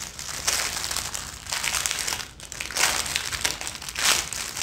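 Clear plastic packaging bag crinkling as it is handled and pressed flat, in several irregular bursts.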